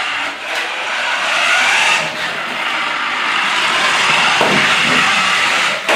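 Remote-control toy Porsche 918 Spyder driving on a hardwood floor: its small electric drive motor and gears whirring, with tyre noise on the boards, rising and easing a little as it speeds up and slows.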